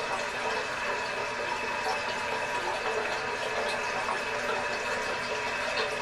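Fluidmaster 400A toilet fill valve refilling the tank with a steady hiss of running water and a faint high whistle. It is running on without shutting off, a sign the valve needs replacing.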